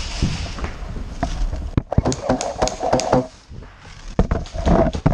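Airsoft game action: an irregular run of sharp cracks and knocks, densest a couple of seconds in, mixed with shouting voices.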